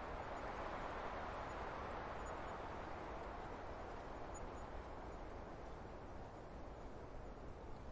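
Wind blowing through conifer trees as a steady hiss, swelling about a second in and slowly easing off.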